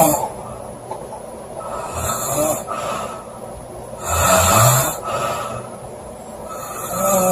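Woman snoring loudly: three snores, each under a second, about every two and a half seconds, the middle one the loudest.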